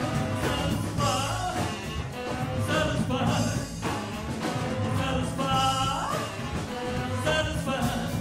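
A live rock and roll band playing: upright double bass, hollow-body electric guitar and drums, with a man singing over them.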